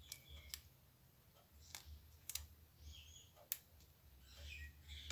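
A handful of faint, separate clicks of a plastic SIM card and its plastic adapter being handled between the fingers.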